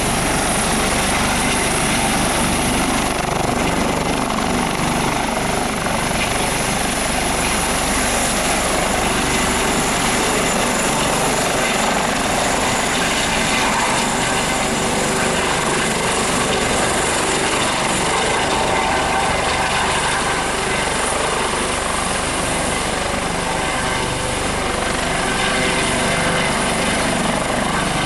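A US Coast Guard HH-65 Dolphin twin-turboshaft helicopter hovering low over the water close by, a steady, loud rush of rotor and turbine noise mixed with the hiss of its downwash on the water.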